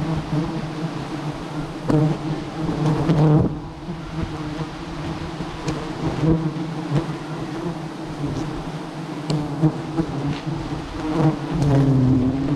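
A colony of giant honeybees (Apis dorsata) buzzing as a steady low hum over their open comb while it is being handled. The hum swells at moments as bees fly close past the microphone, with a few brief knocks.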